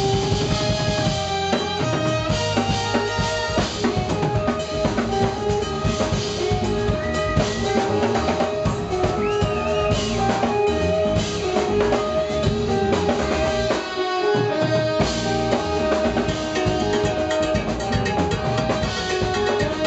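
Live jazz-fusion band playing: drum kit, bass, electric guitar and keyboards under a horn section of saxophone and trumpets holding sustained notes. The bass and kick drum drop out for about a second around two-thirds of the way through.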